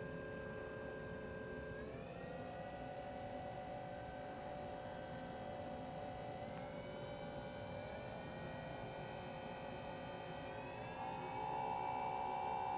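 Quadcopter electric motors spinning during a motor test, a steady whine of several tones that steps up in pitch three times, about 2, 6.5 and 11 seconds in. One of the motors is suspected of being bad.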